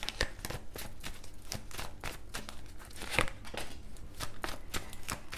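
A deck of tarot cards being shuffled by hand: a dense run of quick papery clicks and flicks, with one louder snap a little after three seconds in.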